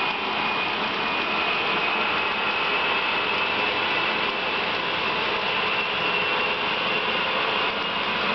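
H0-scale model freight cars rolling past on the track: a steady rolling clatter of the small wheels on the rails, with a faint high tone held throughout.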